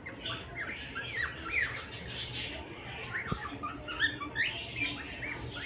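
Pet cockatiel and budgies chirping and chattering together: a steady stream of many short, quick, overlapping chirps that rise and fall in pitch. There is one brief tap about halfway through.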